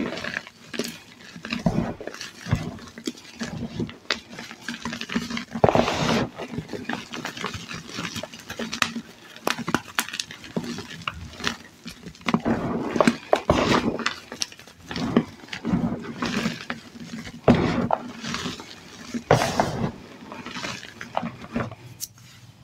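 Hands crushing and crumbling dyed reformed gym chalk into a heap of loose chalk powder: soft crunches and crumbling in irregular handfuls, with sharp little cracks and powder falling between the fingers. A few louder crunches come about six seconds in and again in the second half.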